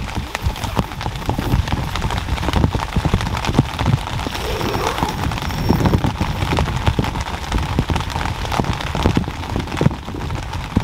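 Heavy rain drumming on a camping tent, heard from inside: a dense, continuous patter of drops striking the tent fabric.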